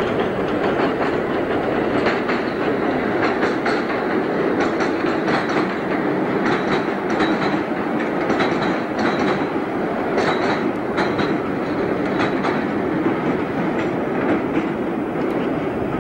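A British Rail Class 485/486 electric train (ex-London tube stock) running along the track with a steady rumble, its wheels clicking and clattering over the rail joints about once or twice a second.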